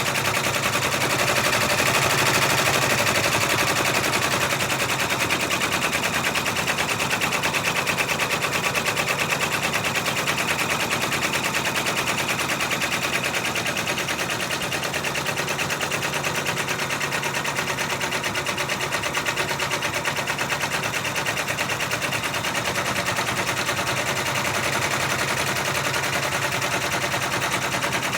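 Six-needle embroidery machine stitching out a monogram at speed: a rapid, even chatter of needle strokes that runs on without a break.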